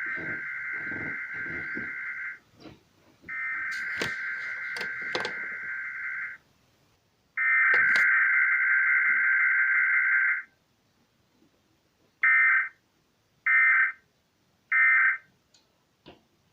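Emergency Alert System digital data tones: three bursts of buzzy two-pitch warbling, about three seconds each, carrying the alert header. After a short pause come three brief bursts of the same tone, the end-of-message code. A few sharp clicks fall inside the long bursts.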